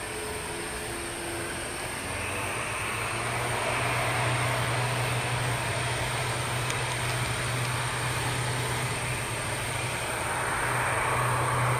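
ATR 72-500 twin-turboprop at takeoff power on its takeoff roll: its Pratt & Whitney PW127 engines and propellers give a steady low drone under a broad rushing noise. The noise swells a couple of seconds in and again near the end.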